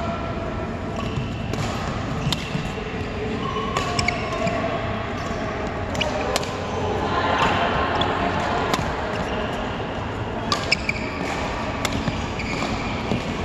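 Badminton rally: a string of sharp racket hits on the shuttlecock at uneven intervals, with short squeaks of court shoes on the floor, all ringing in a large hall.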